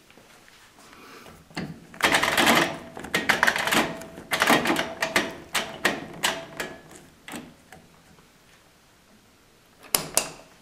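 Zanussi Super Jetsystem washing machine's programme selector knob being turned by hand, its mechanical timer ratcheting through a fast run of clicks that thins to separate clicks. Near the end a push button on the panel clicks in with two sharp clicks.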